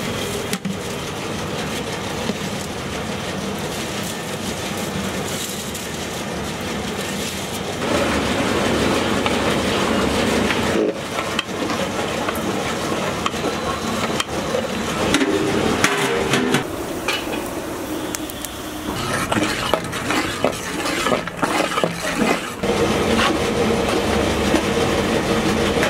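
Rice poured into a large aluminium pot of bubbling broth, with a steady rush, then a long metal ladle stirring and scraping the rice around the pot from about eight seconds in, knocking against the pot's sides near the end.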